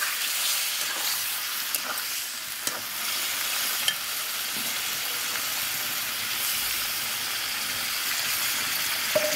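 Jackfruit and spice masala sizzling in a hot pan, with a few light clicks of a spoon against the pan as it is stirred.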